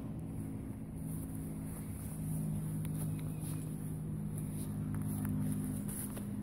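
Steady low hum of a running motor, a little louder from about two seconds in, with a few faint soft clicks over it.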